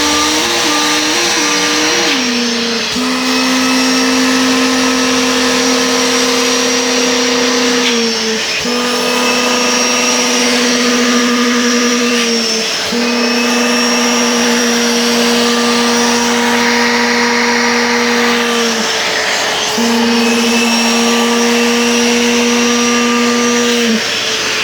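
Rented wet-extraction upholstery vacuum running as it vacuums a sofa, a steady motor whine whose pitch dips briefly about every five seconds as the nozzle is worked over the fabric.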